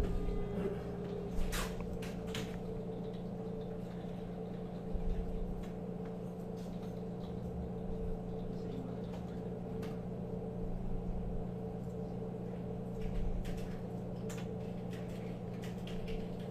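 Small Phillips screwdriver backing out the screws that hold a receipt printer's cutter mechanism: a few faint, scattered clicks and ticks of metal on metal over a steady low hum.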